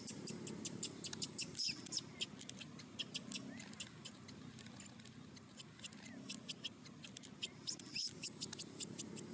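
Young macaque squeaking: rapid, irregular high-pitched squeaks, several a second, over a steady low background hum.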